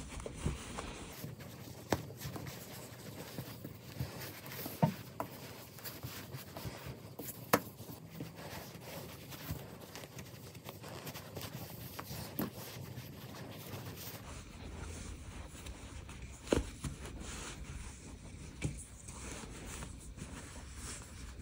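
Soft rustling and scraping of giant chunky yarn being pulled through stitches by hand, with a few sharper taps scattered through.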